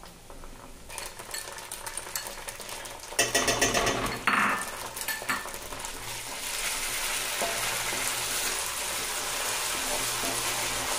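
Onions and chilli–garlic paste frying in oil in a metal kadhai as tomato sauce is stirred in: a wooden spatula scrapes and knocks against the pan, loudest about three to five seconds in. From about six seconds in, the oil settles into a steady sizzle.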